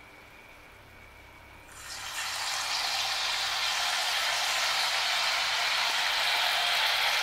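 Pumpkin pakora batter frying in hot oil in a kadhai: a steady sizzle that comes in suddenly about two seconds in, after a quiet start.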